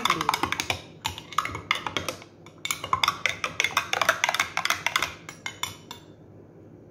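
Metal spoon stirring a drink in a glass mason jar, clinking rapidly against the glass, then stopping about six seconds in.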